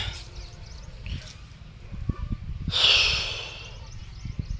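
A sharp, hissing breath or sniff close to the microphone about three seconds in, over a few faint low thumps.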